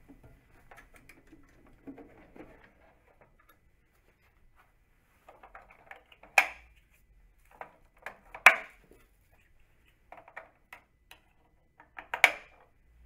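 Plastic parts of an automatic sanitary toilet seat being handled while a new roll of seat-cover film is fitted: light rustling and tapping, then small ticks and three sharp plastic clicks spread through the second half, the last one loudest.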